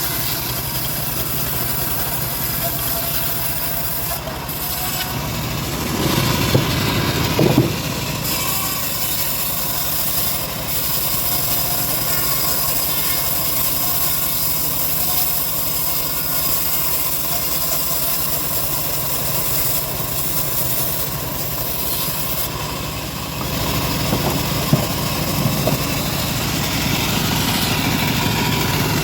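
Bandsaw running steadily while slicing wood, with two louder, rougher spells, about six seconds in and again near the end.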